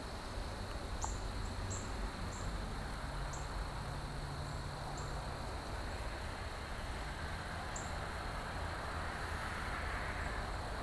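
Crickets trilling steadily at one high pitch, with about eight short, sharp bird chip notes scattered through the first eight seconds, over a low outdoor rumble. A broad rushing noise grows near the end.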